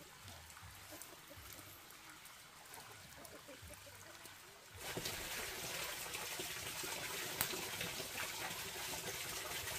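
Water running in a steady stream, starting abruptly about halfway through after a few quiet seconds.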